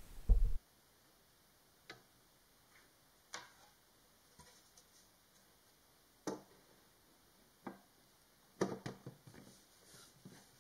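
A dull thump at the start, then scattered light knocks and taps of a Brazilian mahogany bread box's wooden lid and a small glass water container being set in place and the lid closed.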